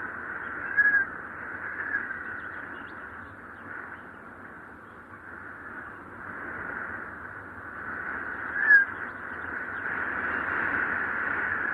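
Wind whistling: a breathy, high whistle that swells and fades slowly, with two brief sharp squeals, one about a second in and one near the end.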